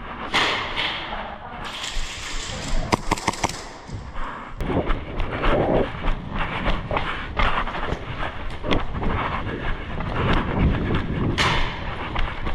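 Footsteps and gear rustling of an airsoft player moving through a close-quarters building, with uneven thuds. About three seconds in comes a quick string of sharp airsoft gun shots.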